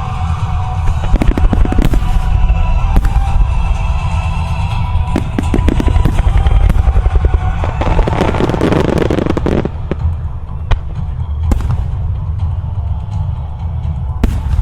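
A music starmine fireworks display: shells bursting in quick succession with sharp bangs and crackle over recorded music, thickest in a dense crackling barrage about eight to nine and a half seconds in, then thinning to a few single bangs near the end.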